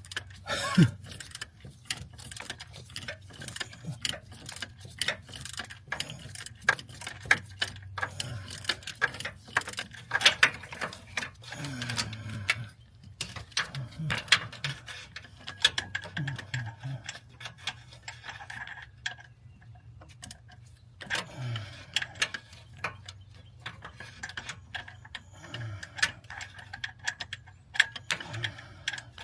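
Hand ratchet clicking in short, irregular bursts as a stubborn bolt is worked, with scattered clinks of metal tools.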